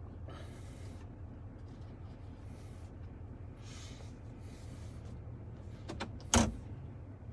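Steady low rumble of the truck's Duramax 6.6L V8 turbo-diesel idling, heard inside the cab. A couple of light clicks come near the end, then a single sharp thump.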